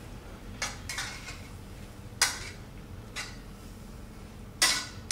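A metal utensil scraping and clinking against a frying pan as a cream-sauced chicken dish is scooped out onto a plate: a few sharp clinks about a second apart, the loudest about two seconds in and near the end.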